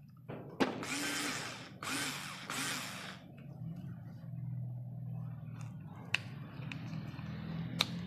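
Daewoo 3.6 V cordless screwdriver with a Phillips bit running in two loud spurts of a second or so each, then a quieter steady whir, with a couple of sharp clicks near the end.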